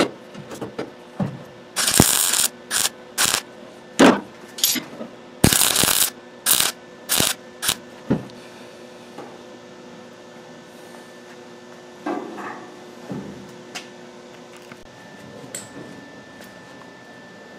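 MIG welder striking short weld bursts, about nine in the first eight seconds, plug-welding a sheet-steel quarter panel flange; after that only a steady low hum and a few faint knocks.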